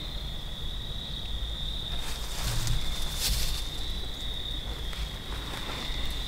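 Crickets singing in a steady, unbroken chorus, one high continuous trill, under a low background rumble, with a few brief rustles about two to three seconds in.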